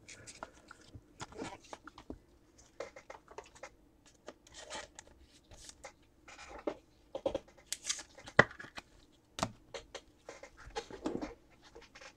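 Off-camera handling of trading cards and their packaging: scattered light clicks, scratches and rustles at an uneven pace, with a few sharper clicks about two-thirds of the way through.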